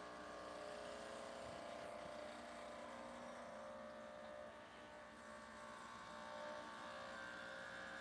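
Quick Mill Anita Evo espresso machine's vibratory pump humming steadily at full brew pressure after pre-infusion, pushing water through the E61 group and the coffee puck.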